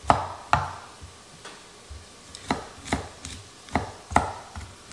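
Kitchen knife chopping broccoli florets into small pieces on a cutting board: sharp knocks of the blade on the board, about two a second, some louder than others.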